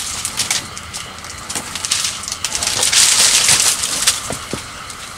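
Water splashing with rustling and small knocks, loudest about three seconds in, as a set fishing pole is pulled up from the canal with a hooked walking catfish thrashing on the line.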